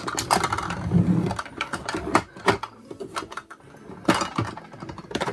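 Makeup compacts and palettes clicking and clattering against each other and the drawer as they are handled and stood upright in a row: an irregular run of light knocks with a few sharper ones.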